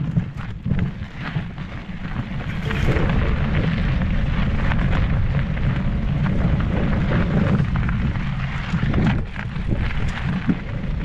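Wind rumbling on a riding mountain bike's camera microphone, growing louder about two seconds in as the bike picks up speed, with tyre crunch on a dirt and gravel trail and short knocks and rattles as the bike rolls over rocks.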